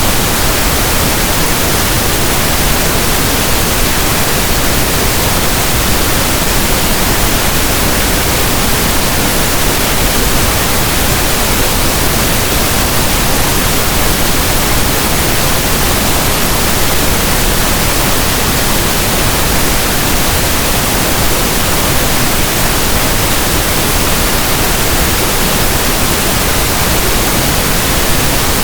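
Steady pink noise: soft, even static like a radio tuned between stations, with no change in level.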